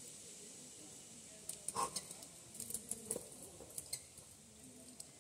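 A climber moving on rock: scattered light clicks and scuffs of climbing gear on the harness clinking and shoes scraping the limestone, the loudest scrape about two seconds in.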